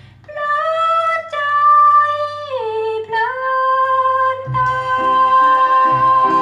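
A vinyl record played through an Ortofon Type C cartridge and heard over loudspeakers in the room: a woman's voice holds long high notes and slides down at about halfway. The lower accompaniment comes back in near the end.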